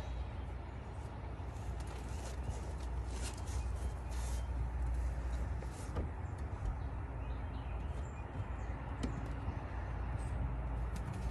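A climber moving on a plywood spray wall: scattered light knocks and scuffs of hands and climbing shoes on screw-on holds, over a steady low rumble.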